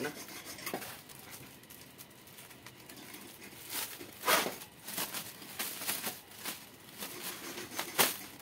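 Thin clear plastic bag being opened and handled, crinkling and rustling in a run of short crackles through the second half, the sharpest crackle near the end.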